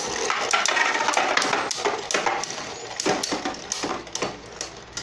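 Two Beyblade Burst spinning tops whirring and scraping in a plastic stadium, clacking sharply against each other and the stadium wall many times. The sound fades as the tops slow down.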